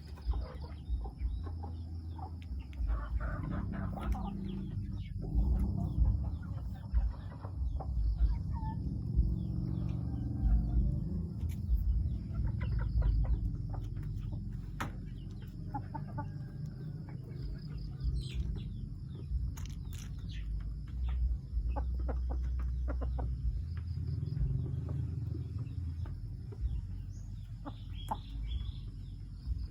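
Young Bangkok gamefowl clucking and calling now and then, with scattered small knocks and scratches.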